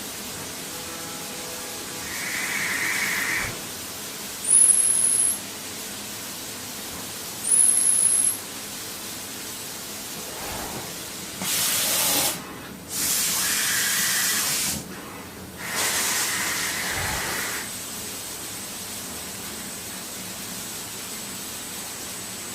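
CNC machine at work: a steady hiss with several bursts of louder hissing a second or two long, and two short, very high-pitched rising whines about three seconds apart.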